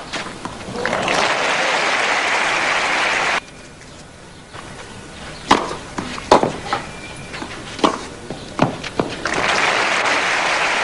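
Tennis crowd applauding, stopping abruptly after about three seconds. Then a rally: about five sharp racquet strikes on the ball, roughly a second apart. Applause starts again near the end.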